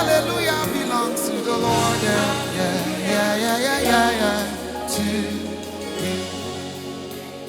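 Gospel worship music: voices singing a wavering, ornamented melody over held keyboard chords and bass. About five seconds in the singing stops and the instruments hold on, fading.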